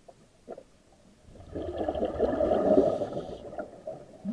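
A scuba diver exhaling underwater through his regulator: a gurgling rush of bubbles that starts just over a second in and lasts about two seconds, with a few faint clicks before it.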